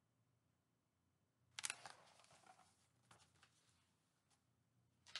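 Hardcover picture book being handled and its page turned: a sudden rustle of paper about a second and a half in, then fainter rustling and a small click.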